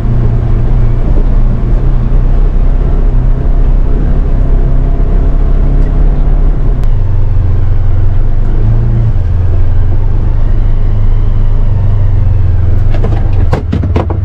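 Polaris Ranger XP 1000 Northstar's twin-cylinder engine running at low trail speed, a steady low drone that settles slightly lower in pitch about halfway through. A few sharp clicks come near the end.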